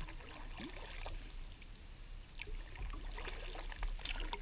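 Kayak paddle strokes: light splashes and water trickling off the paddle blades in irregular little spurts, over a low steady rumble.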